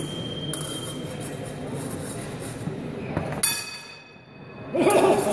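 Épée fencing bout: a steady high electronic tone in the first second, then a sharp metallic clash of blades with a brief ring about three and a half seconds in, and a loud cry near the end as a touch is made.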